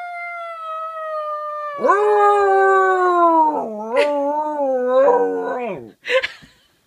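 Dog howling: a long drawn-out howl slowly falling in pitch, then a louder, lower howl from about two seconds in that wavers and fades out about six seconds in, followed by a short sharp sound.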